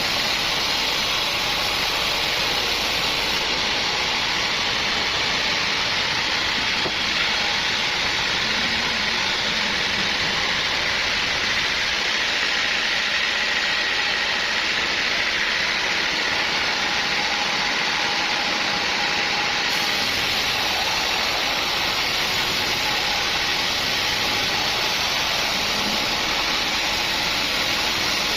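Sawmill machinery running steadily: a loud, even noise with a faint high whine in the middle stretch.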